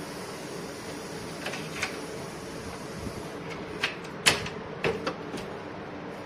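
Sliding window with a mosquito-mesh screen being handled: a string of sharp clicks and knocks from the frame in its track, the loudest about halfway through, over a steady hiss.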